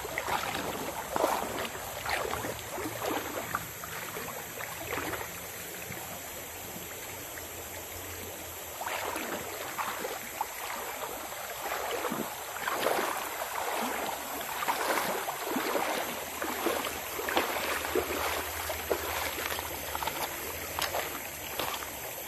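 Footsteps wading through a shallow, stony stream: irregular splashes and sloshes of water, pausing for a few seconds about four seconds in, then splashing steadily again.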